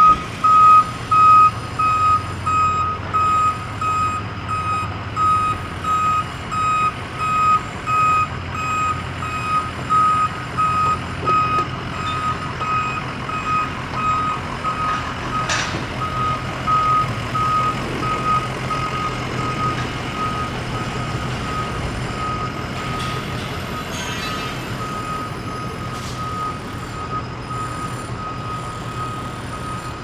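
Reversing alarm on a construction vehicle, beeping at one pitch a little faster than once a second, over the low rumble of its engine. The beeps fade gradually as the vehicle moves away.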